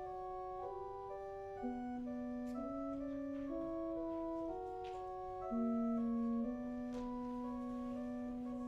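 Church organ playing slow, sustained chords, the notes held steady and changing every second or so.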